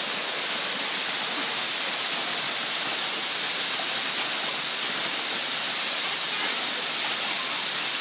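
Dark Hollow Falls, a waterfall cascading over boulders, giving a steady, even rush of falling water.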